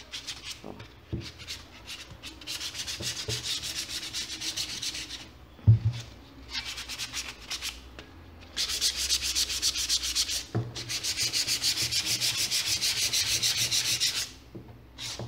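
Fine sandpaper rubbed back and forth over the rubber sole of a Havaianas flip-flop in quick, rhythmic scraping strokes, scuffing and cleaning the surface before fabric is glued on. The strokes pause briefly twice, and a single thump about six seconds in is the loudest sound.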